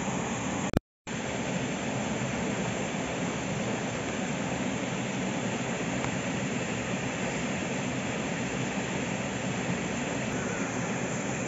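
Steady rushing noise, with a short click and a split-second dropout about a second in.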